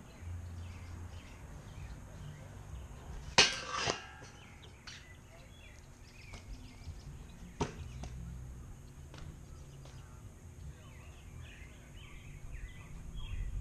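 Kick scooter striking a steel grind rail: a loud metallic clang about three and a half seconds in that rings briefly, a smaller knock just after, and a second sharp clack about four seconds later. The scooter's wheels rumble on the concrete driveway between the hits.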